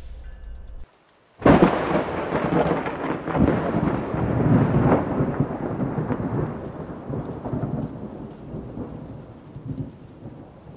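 Intro sound effect: a sudden thunder-like boom about a second and a half in, followed by a long rumbling, crackling wash that slowly fades.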